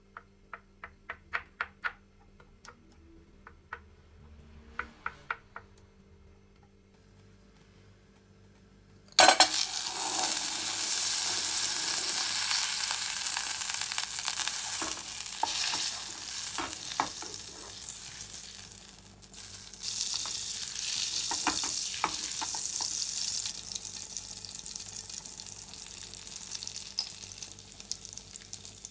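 A few light clicks, then food goes into a hot pan of butter and starts sizzling with a sudden loud hiss that slowly dies down, with occasional knocks of a utensil stirring it.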